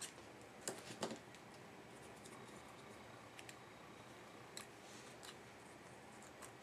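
Scissors snipping paper: a few sharp cuts in the first second or so, the loudest about a second in. A few faint ticks follow.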